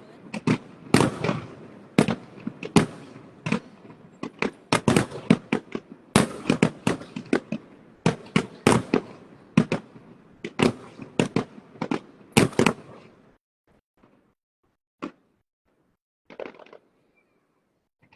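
Fireworks display: a dense run of sharp bangs from aerial shell bursts, several a second, that stops about 13 seconds in. Two lone bangs follow, a couple of seconds apart.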